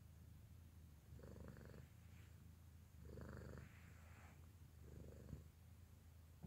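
Grey tabby kitten purring faintly, the purr swelling and easing with each breath about every two seconds.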